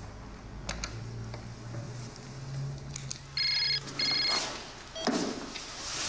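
Telephone ringing electronically: one British-style double ring, two short bursts a moment apart, followed by a brief noise about a second later.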